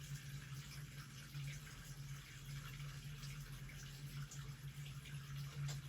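Steady low hum with a faint crackling hiss above it; no distinct event stands out.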